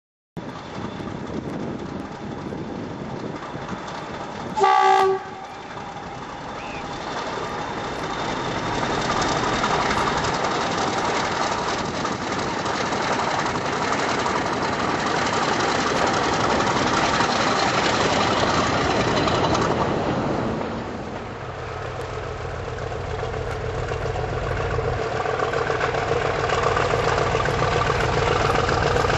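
A diesel locomotive horn sounds once, briefly, about five seconds in. Then a diesel locomotive's engine works hard and grows louder as it pulls a train away. After a sudden drop a little past twenty seconds, another diesel-hauled train approaches, its engine drone steadily rising.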